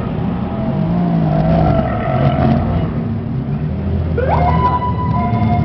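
Sports car engines revving as the cars move off close by, the engine pitch swelling and falling. About four seconds in, a siren-like tone rises quickly and then holds steady.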